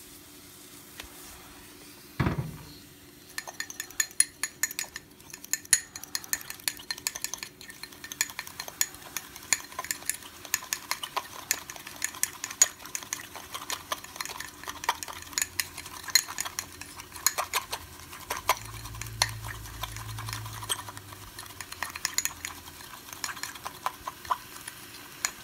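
Metal spoon whipping the first moka-pot coffee and sugar in a small drinking glass to work up a crema: a fast, uneven run of clinks and scrapes against the glass. It starts after a single knock about two seconds in.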